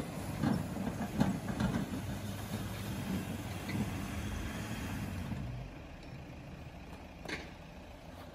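SUV engine running as it tows a loaded trailer through slushy snow, dropping away after about five and a half seconds; a short click comes near the end.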